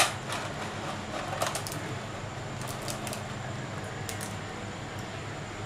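A sharp clink as the spoon is set down on the plate at the start, then a few light scattered clicks and crackles of crisp deep-fried noodles being picked up by hand, over a steady low hum.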